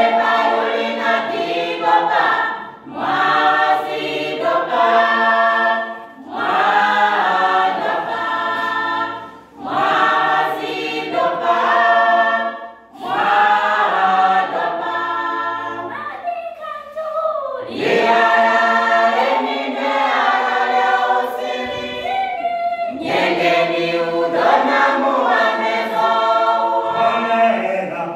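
A small gospel choir singing a cappella in several parts, in short phrases with brief breaths between them.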